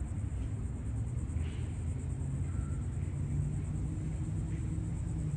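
Steady low outdoor rumble, with a faint low hum joining about halfway through.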